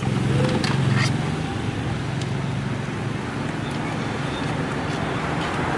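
Roadside traffic noise: a motor vehicle's engine running close by with a steady low hum, loudest in the first two or three seconds, then easing into general street noise.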